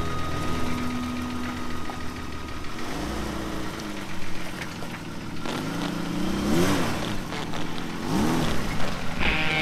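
Jeep engine running under a steady low note, revved up and let back down about three times, its pitch rising and falling with each rev.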